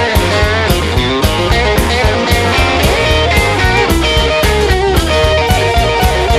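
Rock music, an instrumental passage without singing: guitar over bass and a steady drum beat.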